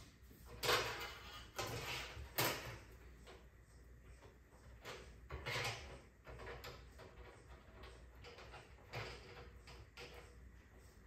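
Hands working on the TV's LED backlight strips and panel during a backlight replacement. There are a few sharp clicks and knocks, the sharpest about a second in and at about two and a half seconds, with short bursts of scraping and rubbing in between.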